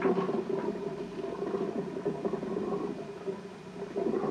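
Bathwater bubbling and gurgling, with irregular small pops, from a person lying submerged in the tub, over a low steady hum.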